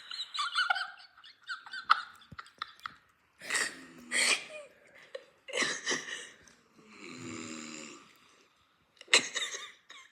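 A man snoring in a string of irregular loud breaths, with one longer, steadier snore about seven seconds in.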